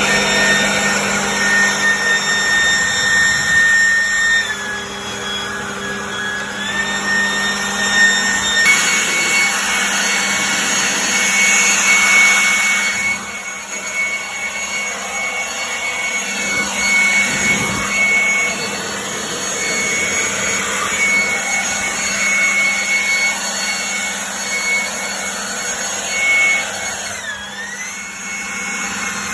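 A high-speed power tool running continuously with a high whine and hiss. Its pitch shifts a few times and dips sharply once near the end, as it is loaded.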